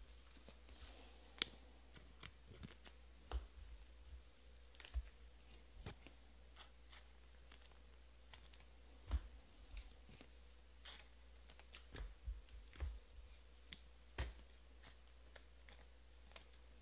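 Faint, irregular clicks and light taps, roughly one a second, from trading cards being handled and flipped through by hand, over a low steady hum.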